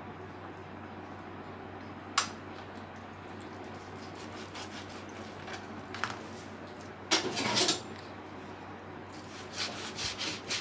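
Knife cutting and handling raw meat on a kitchen counter: a sharp knock about two seconds in, then bouts of scraping and rubbing around seven seconds and again near the end, over a faint steady hum.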